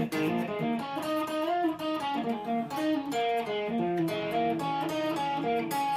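Electric guitar playing a blues lead fill between sung lines: a run of single notes, some of them bent or wavering.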